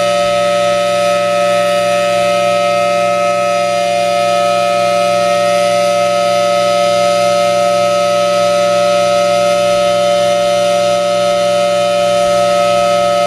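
Federal Signal Thunderbolt 1000T blower-driven outdoor warning siren sounding loud and held at a steady pitch, as in its monthly test signal.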